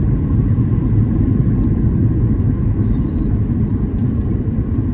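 Steady low rumble inside the cabin of a Boeing 737-800 with CFM56-7B engines during the landing at touchdown, from engine and airflow noise and the gear on the runway. The touchdown is smooth, with no distinct thump.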